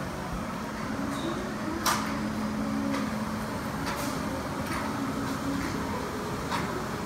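Steady hum with a few sharp knocks or clicks, the loudest about two seconds in.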